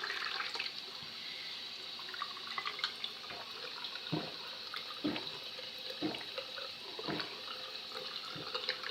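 Bathroom tap running with a steady hiss of water. From about four seconds in come four gulps, about one a second, as a glass of water is drunk.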